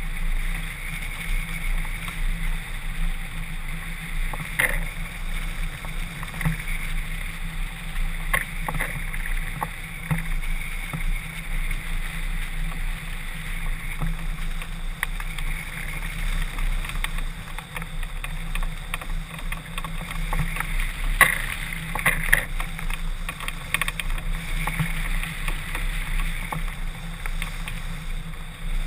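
Wind noise from the airflow over a wing-mounted camera on a hang glider in flight, a steady rush with low buffeting and occasional sharp clicks and rattles.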